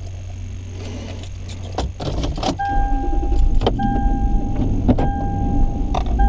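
An SUV's engine running in the cabin, its rumble growing louder about two seconds in, with a few clicks and a jangle of keys. A dashboard warning chime then beeps over it in a repeating pattern of long tones with short breaks.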